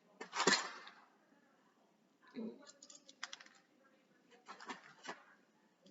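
Plastic Lego pieces clicking and clattering as they are handled and sorted, in short clusters of quick clicks, after a loud brief rustle just after the start.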